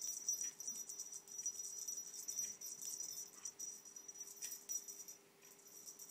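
A small object jingling and rattling, with a high ringing tone and quick ticks, shaken off camera. It breaks off about five seconds in, then resumes briefly. A faint steady low hum lies underneath.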